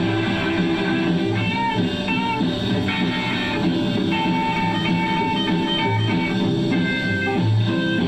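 Rockabilly band recording played back from a home-cut 78 rpm record: a lead guitar bending notes over rhythm guitar, bass fiddle and drums, with no singing in this stretch.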